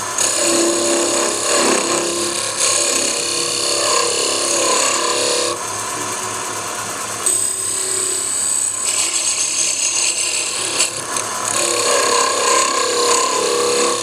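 Wood lathe running with a skew chisel cutting a taper into the spinning wooden blank. The cutting noise comes and goes in passes of a few seconds each over the lathe's steady hum.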